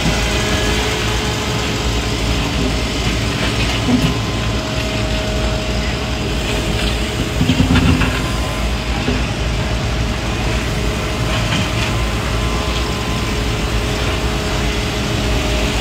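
Spider excavator's diesel engine running steadily under load as the machine works its way down a steep dirt slope on its legs and bucket. A brief louder burst of noise comes just before eight seconds in.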